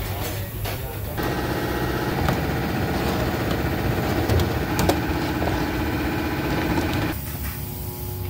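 Steady mechanical drone of bakery machinery, louder from about a second in until near the end, with a few light metallic clicks of a baking tray being handled.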